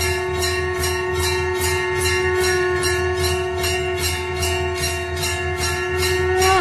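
Bells jingling in a steady rhythm, about three shakes a second, over one long, steady held tone.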